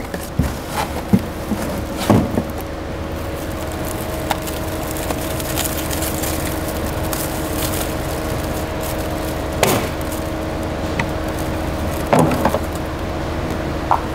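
Clear plastic wrap crinkling and cardboard packaging rustling as a new headlight is unwrapped by hand, with scattered crackles and a few louder knocks, about two seconds in, near ten seconds and near the end.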